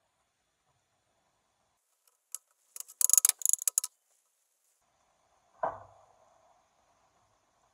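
Woodworking clamps being set on glued-up boards: about a second of rapid, sharp metallic clicking and rattling, then a single knock with a short ring as the boards are pushed together.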